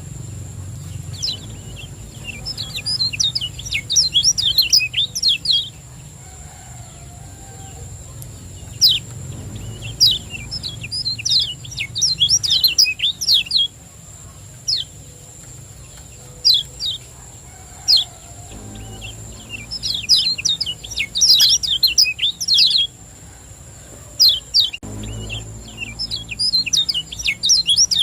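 Kecial kuning, a white-eye, singing in repeated bursts of fast, high chirping of a few seconds each, with single sharp notes in the pauses between them.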